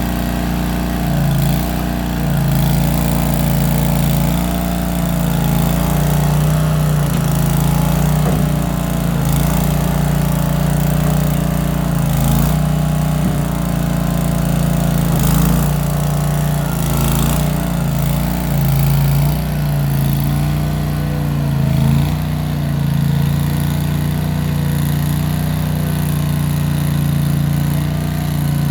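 Case 1816 skid steer engine running steadily while working, its note shifting a little now and then. A few brief knocks come through over it.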